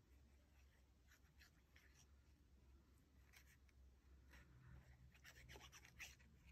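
Near silence, with faint rustles and light ticks of small paper pieces being handled while glue is squeezed onto them from a bottle; the ticks come more often in the second half.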